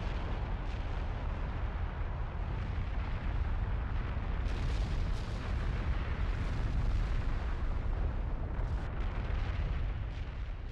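A deep, continuous rumble with a dense roar over it, an eruption-like sound effect that runs steadily without a break.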